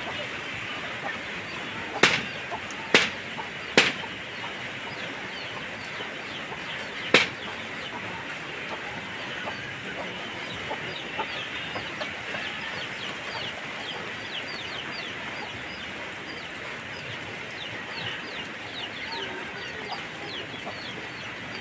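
Chickens clucking, with many short high falling peeps over a steady hiss. Four sharp knocks stand out in the first several seconds.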